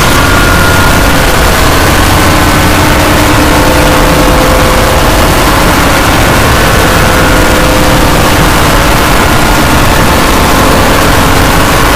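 Extremely loud, heavily distorted and overdriven logo soundtrack, turned into a dense, steady roar with a few faint held tones and no beat or change.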